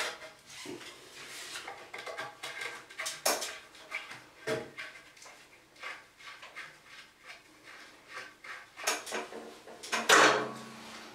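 Scattered light knocks and metallic clinks from handling long wood screws and a length of 3x2 timber held up against a wall.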